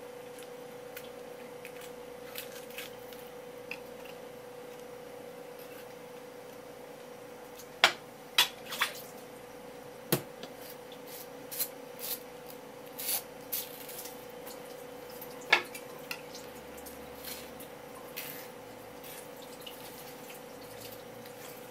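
Scattered sharp clicks and wet taps from filleting a conger eel by hand: knife, wet fingers and slippery fish against a wooden cutting board. About ten of them fall between roughly eight and sixteen seconds in, over a steady low hum.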